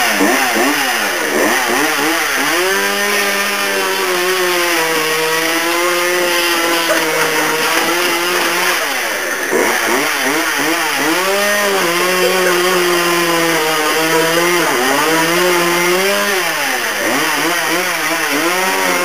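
Two-stroke chainsaw running hard, its engine pitch sagging and climbing back again and again as it is revved and bogs down while cutting through a couch.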